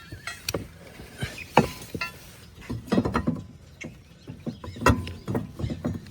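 Irregular clicks, knocks and scrapes of metal parts being handled while a new blade is fitted to the underside of a riding mower's deck.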